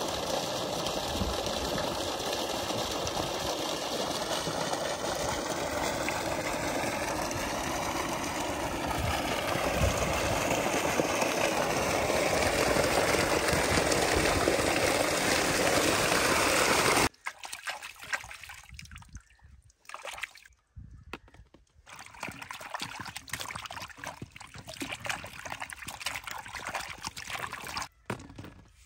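Water gushing steadily from an irrigation pipe outlet, getting louder partway through as a metal bowl of potatoes is held in the stream. About two-thirds of the way in it cuts off suddenly to quieter, irregular handling sounds as potatoes are dropped into a plastic colander.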